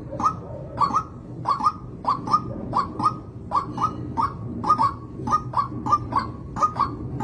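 White-breasted waterhen calling: a steady run of croaking double notes, repeated a little under two times a second.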